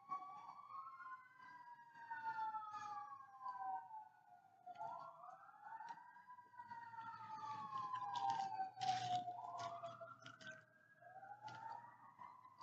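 Two or more fire truck sirens wailing at once, their pitches overlapping, each rising quickly and then falling slowly over a few seconds. Short sharp noises break in now and then, the loudest about nine seconds in.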